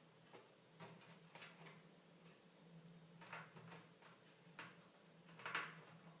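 Faint scattered clicks and small knocks from hands working on a PlayStation 3 console's internal parts, about half a dozen irregular ticks with the loudest about five and a half seconds in, over a low steady hum.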